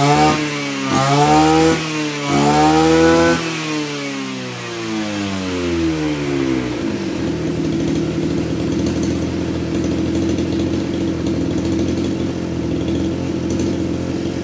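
Maruyama MBS2630 26cc two-stroke brush cutter engine revved up and down in a few quick bursts with no load on the blade, then dropping about seven seconds in to a steady idle that is very smooth.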